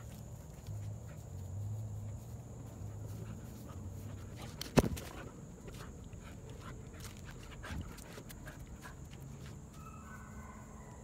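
Giant Schnauzer puppy scampering about, its dog sounds faint, with one sharp short sound about five seconds in that is the loudest, and a smaller one a few seconds later.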